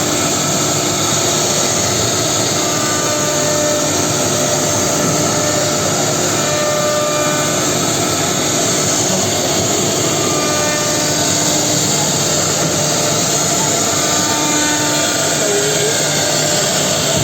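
Four-spindle Holztek HT-R4M CNC router milling dished wooden chair seats: the spindles and cutters run steadily with an even, continuous cutting noise and faint tones that come and go.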